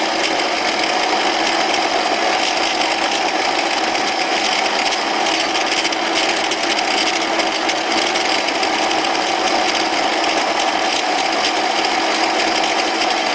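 Small metal lathe running while a 10 mm twist drill in a tailstock drill chuck bores into a spinning steel workpiece. It makes a steady machine hum with a constant whine over the hiss of cutting.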